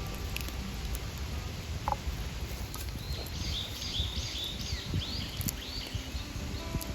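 A songbird singing a quick series of about eight high, clear notes, starting about three seconds in, over a steady low outdoor rumble with a few faint clicks.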